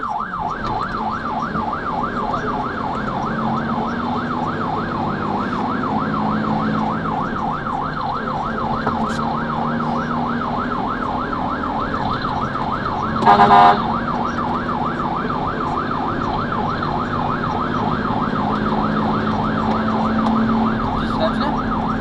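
Fire engine's electronic siren in a fast yelp, rising and falling rapidly, heard from inside the cab of a Mercedes Atego with its diesel engine running beneath. About halfway through, a short blast of the Grover air horn cuts in.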